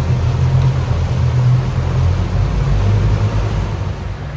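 Twin Yamaha 200 outboard motors on a 27-foot Grady-White running steadily under way, with a low drone whose pitch steps down a little about halfway through, over rushing water and wind.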